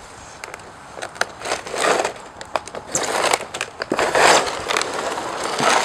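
Plastic sled scraping and hissing over icy asphalt and dry leaves, swelling in several surges as it comes closer, with scattered crackles and clicks.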